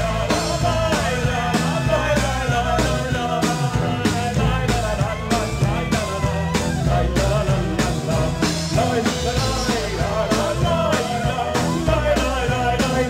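Live band playing an instrumental passage: acoustic guitar and drum kit keeping a steady beat under a melody line.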